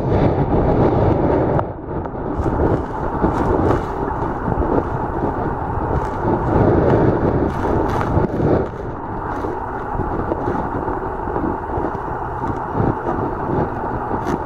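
Shallow-water surf heard from underwater: a continuous low rushing and churning that swells and eases every few seconds as the waves break and wash over, with faint ticks mixed in.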